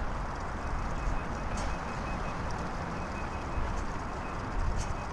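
Demolition site sounds from a long-reach excavator at work: a steady low rumble of machinery and wind, with a couple of sharp knocks. A faint high-pitched beep repeats throughout, like a distant reversing alarm.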